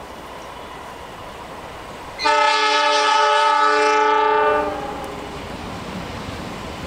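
Diesel locomotive's air horn sounding one long blast of several notes together, about two and a half seconds long, starting a little over two seconds in. The low rumble of the approaching train runs under it and goes on after the horn stops.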